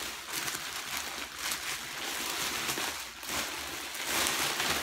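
Plastic packaging crinkling and rustling as it is handled and pulled open by hand: an uneven hiss with scattered crackles, a little louder near the end.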